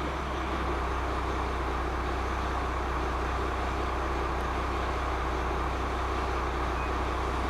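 Vehicle engine idling steadily: a constant low rumble and hum with no change in speed.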